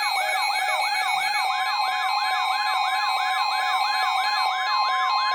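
Weather alert radio receivers sounding their alarms for a flood warning: a warbling siren-like tone sweeping up and down about three times a second, layered over steady tones, with another steady tone joining about a second and a half in.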